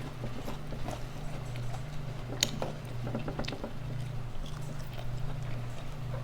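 Close-up eating sounds: chewing with scattered small clicks and smacks, and one sharper click about two and a half seconds in, over a steady low hum.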